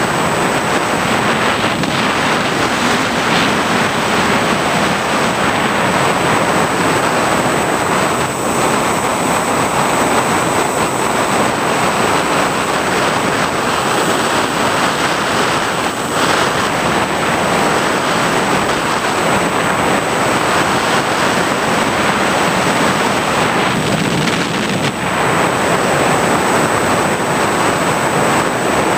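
Wind rush and motor noise picked up by the onboard camera of an FPV model aircraft in flight: a loud, steady rushing noise with a thin, high whine held over it.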